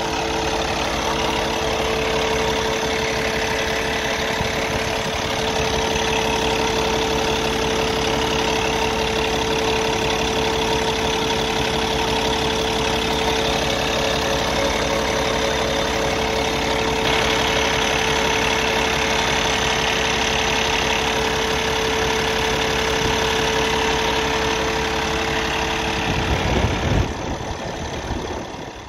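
Cummins ISX15 inline-six diesel engine idling steadily, with a steady hum over it that stops a few seconds before the end, where the sound briefly gets louder.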